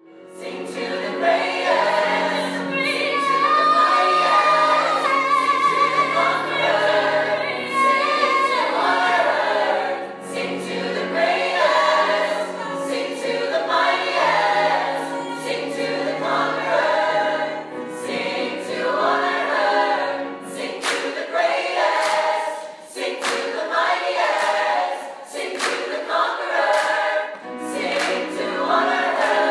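Music: a choir of many voices singing.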